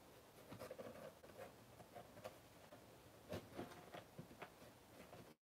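Faint scratching and a few light clicks of a paper straw being worked through holes in the sides of a cardboard box, cutting to dead silence near the end.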